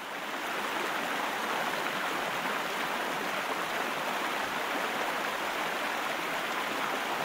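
Steady rushing hiss of spraying water, a power-wash jet sound effect, fading in over the first second.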